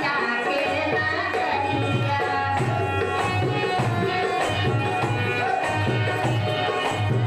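Instrumental passage of a Hindu devotional bhajan: harmonium holding chords over a steady rhythm of hand-drum strokes, with no singing.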